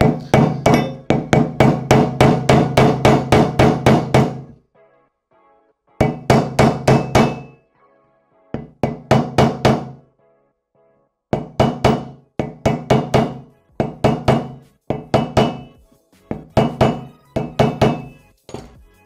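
Hammer blows on a length of PVC pipe, driving a new crankshaft seal into a paramotor engine's support bracket. The blows come in quick runs of about four or five a second, with short pauses between runs, each with a brief low ring.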